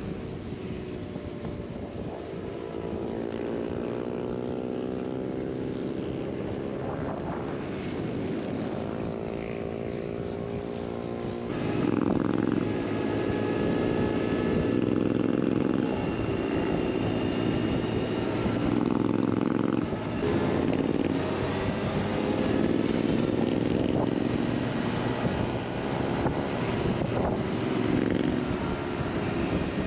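Honda Africa Twin motorcycle engine and exhaust at road speed, its pitch climbing several times as it accelerates, over wind rush. About twelve seconds in the sound becomes louder and stays so.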